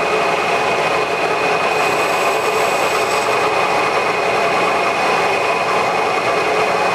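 Manual lathe running steadily at 720 rpm spindle speed, with a constant high whine, while a carbide insert fed by the compound cuts a chamfer on the spinning part.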